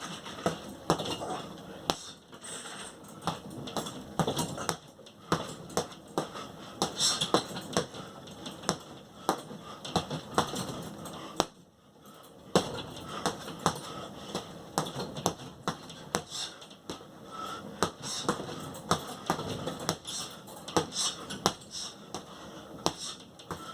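Boxing punches landing in a quick, irregular run of sharp slaps and smacks, with shuffling footwork in a small room. There is a brief pause about twelve seconds in.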